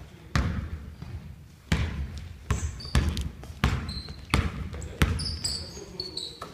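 Basketball bouncing on a hardwood gym floor, about seven dribbles spaced well under a second apart, with sneakers squeaking on the floor in the last second or so.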